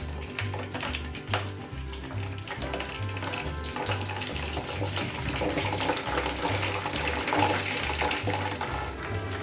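Chicken pieces deep-frying in hot fat in a chip pan, a steady sizzle with crackles, over background music with a repeating low bass line.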